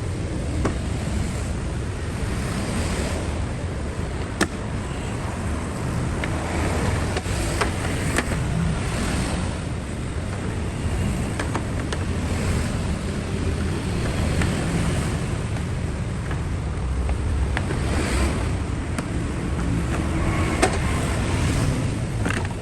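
Toyota Prius engine running steadily with a low rumble, with scattered light clicks.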